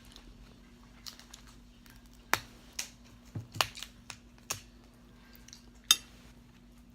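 Hard crab shell being cracked and picked apart by hand: a series of sharp cracks and clicks at irregular intervals.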